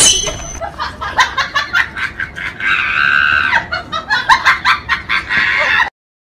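Comic cackling sound effect: a rapid run of short clucking calls, with one longer held call about three seconds in, cutting off abruptly near the end.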